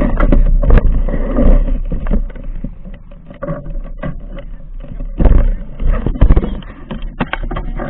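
Motorcycle engines idling with a steady low rumble, under frequent knocks and rustles from the camera rubbing against riding gear, loudest about five and six seconds in.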